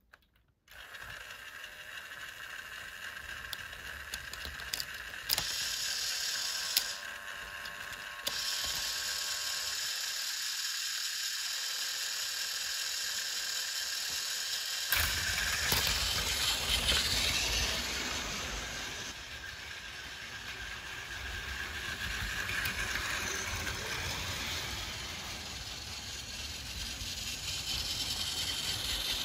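Battery-powered Plarail toy shinkansen trains running on blue plastic track: a small electric motor and gearbox whirring, with light clicks. About fifteen seconds in, a second train starts up and adds a lower rumble of wheels on the track.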